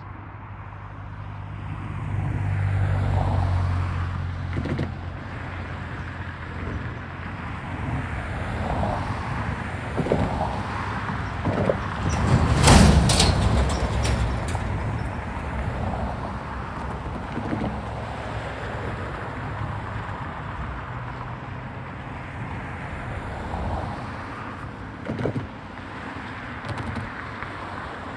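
A Union Pacific intermodal stack train rolling past, with a continuous rumble of wheels on rail. There is a louder stretch with sharp high-pitched hits about halfway through.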